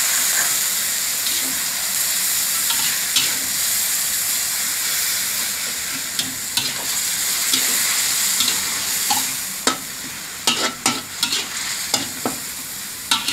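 Pork stir-frying in a metal wok, sizzling steadily as a splash of added water cooks off, while a metal spatula scrapes and taps against the wok. The sizzle eases off gradually, and the spatula strokes come more often in the last few seconds.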